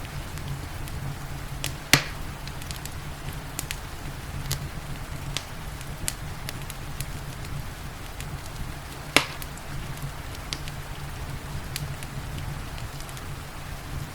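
Wood fire crackling, with scattered small snaps and two louder pops, about two and about nine seconds in, over a steady low rumble and the even hiss of rain.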